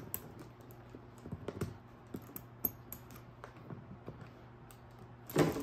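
Small, irregular clicks of the built-in combination lock and metal zipper pulls on a Louis Vuitton Horizon 55 rolling suitcase being fiddled with, the lock staying shut because the combination is unknown.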